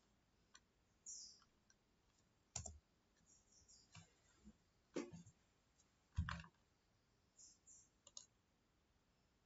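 Faint computer mouse clicks, several at irregular intervals.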